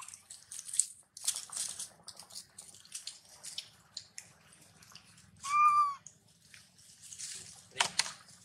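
A baby monkey gives one short, high-pitched, arching call about halfway through, over a light crackle of dry leaves and twigs being handled; a sharp tick comes near the end.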